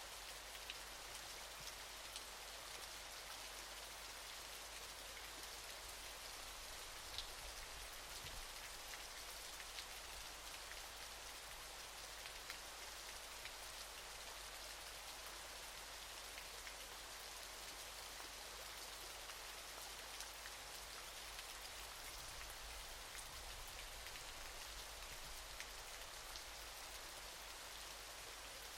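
Waterfall: a steady, even rush of falling water, mostly high hiss, with scattered faint droplet ticks.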